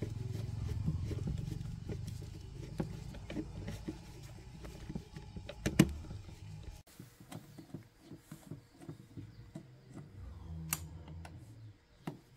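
Screwdriver turning out the screws of an electric wood planer's plastic handle: small clicks and scrapes of metal on the screw heads and housing, with a couple of sharper clicks. A low rumble underneath stops abruptly about seven seconds in.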